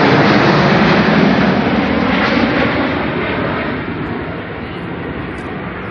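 Jet noise from the Red Arrows' formation of BAE Hawk jets flying past. The noise is steady at first, then fades from about four seconds in as the formation pulls away.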